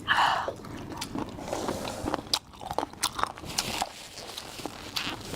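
A person chewing boneless chicken feet close to the microphone, with irregular wet crunches and clicks from the cartilage and a short slurping noise at the start.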